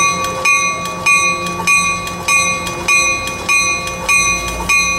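A railway bell striking steadily, a little under two strokes a second, with the ring hanging between strokes, over the low steady hum of a Coaster commuter train standing at the platform.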